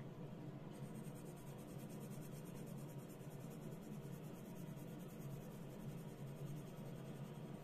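Coloured pencil rubbing back and forth on paper as an area is coloured in; faint and steady.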